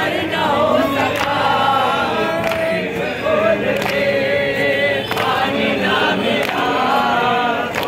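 A crowd of men chanting a Shia mourning lament (nauha) together in unison, with a few sharp slaps scattered through it.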